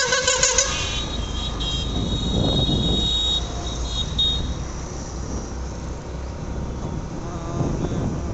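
A motorised two-wheeler riding through city traffic, its engine and the road and wind noise making a steady low rumble, with a vehicle horn beeping a few short times at the start.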